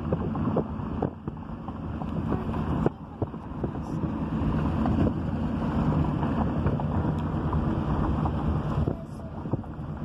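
Wind buffeting the microphone over the low rumble of a car, recorded at an open car window, with a few knocks. No siren tone stands out above the wind noise.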